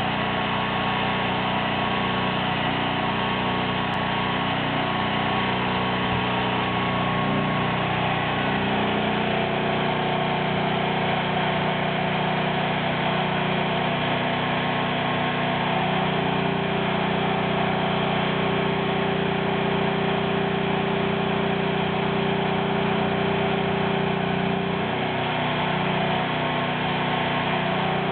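An engine running steadily at idle, its pitch shifting slightly a few times.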